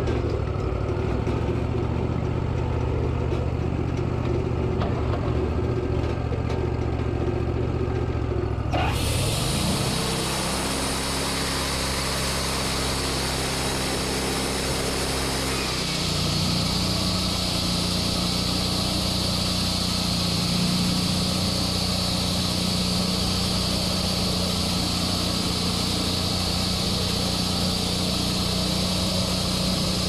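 Wood-Mizer LT40 portable band sawmill running, its engine driving the band blade through a cherry cant. The engine note and the blade's sound change about a third of the way in, when a hiss joins in, and change again near the middle, when a steady high whine sets in as the blade saws on.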